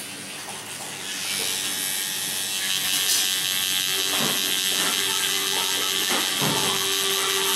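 Electric tattoo machine buzzing steadily as its needle works ink into the skin of a forearm, getting louder over the first few seconds.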